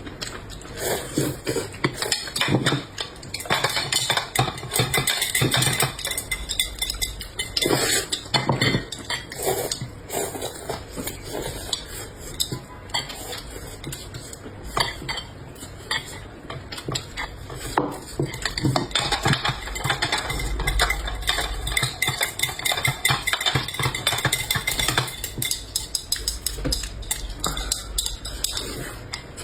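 Cutlery clinking and scraping against dishes as people eat, a steady stream of irregular small clicks and clinks.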